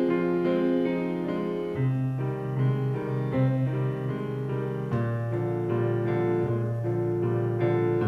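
Solo grand piano playing held chords over a bass line that changes every second or two.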